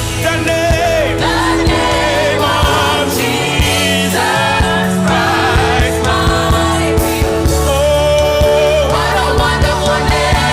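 Gospel worship music: voices singing over a band with a steady bass line and regular drum beats.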